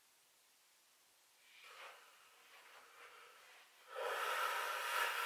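A man breathing out hard while flexing into bodybuilding poses: a softer breath about a second and a half in, then a longer, louder hissing exhale about four seconds in as he tenses into a front pose.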